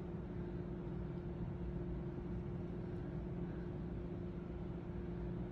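Steady low background hum with a faint constant tone, unchanging and without any distinct knocks or clicks.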